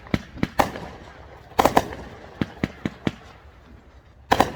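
Fireworks going off in an irregular series of sharp bangs. A louder pair comes a little past a second and a half in, and a quick burst of several bangs comes near the end.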